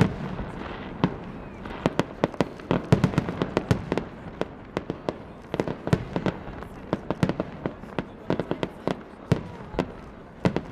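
Aerial fireworks display: a rapid, irregular string of bangs and crackles from shells bursting, dozens of reports with a loud bang right at the start and a dense flurry a few seconds in.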